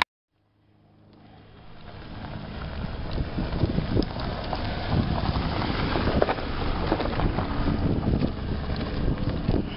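Citroën C4 Picasso minivan driving on a loose gravel dirt track, its engine running and its tyres crunching over stones. After a brief silence at the start the sound fades in, growing louder as the car comes close and passes.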